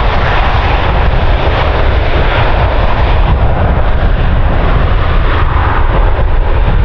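Jet engines of a Boeing 737 running loud and steady: a deep rumble with a rushing hiss on top.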